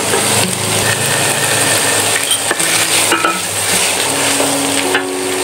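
Minced meat, onion and carrot sizzling in hot oil in a pot while a wooden spatula stirs and scrapes through them, with a few light clicks of a spoon against the pot.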